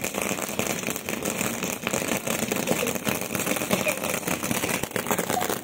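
Ajanta ground fountain firework (anar) burning: a steady rushing hiss of spraying sparks with fine crackling.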